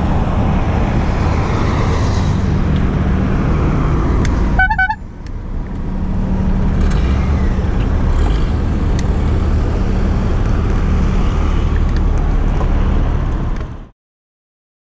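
Steady wind and road noise from riding a bicycle along a street, with the low hum of traffic, and one short pulsing horn toot about five seconds in. The sound stops abruptly near the end.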